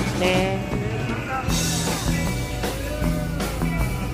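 Background music with a steady drum beat and a stepping bass line.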